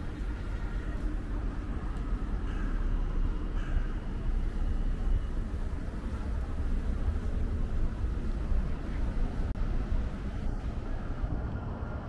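City street ambience: a steady low rumble of road traffic, swelling a little in the middle as vehicles pass on the adjacent road.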